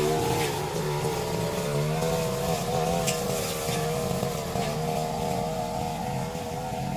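Two-stroke brush cutter engine running at high speed, its pitch wavering up and down as the cutting load changes.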